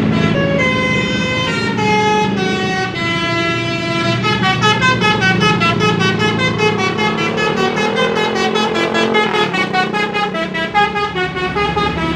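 Indonesian bus's 'basuri' telolet horn, a multi-note musical air horn, playing a melody: held notes at first, then quicker notes from about four seconds in, with the bus engine running beneath.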